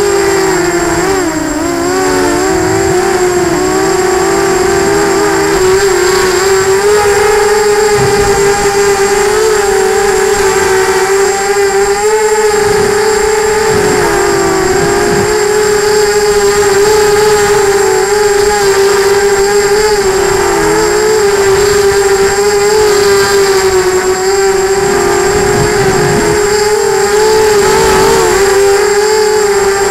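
Electric motors of an FPV model aircraft whining steadily as heard by its onboard camera, the pitch dipping and climbing back a little several times as the throttle changes, over rough rushing air.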